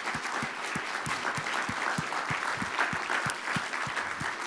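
Audience applauding: a steady mass of many hands clapping.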